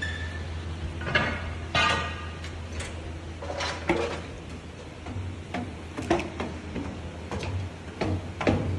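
Factory floor ambience: a steady low hum under scattered, irregular clicks and knocks.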